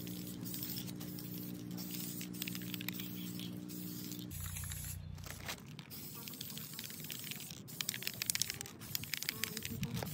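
Sped-up audio of a Rust-Oleum Crystal Clear Enamel aerosol spray can being sprayed in quick hissing bursts. A steady low hum sounds under it for the first four seconds and stops abruptly.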